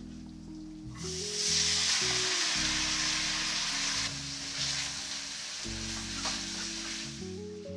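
Food sizzling as it fries in a hot pan. The sizzle starts about a second in and eases off near the end, over soft background music.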